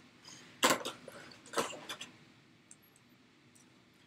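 Clear plastic packaging being handled: a few short rustles in the first two seconds, the loudest about two thirds of a second in, then only a couple of faint ticks.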